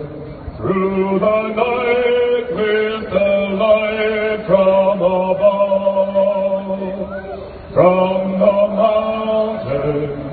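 A man singing solo into a microphone in long held notes, phrase after phrase, with a brief drop in level just before a new phrase about eight seconds in.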